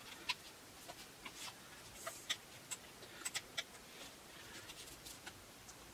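Faint, irregular small clicks and ticks of hand work on a wooden canvas stretcher frame as its corner keys are tightened to tension the canvas, about a dozen clicks in all.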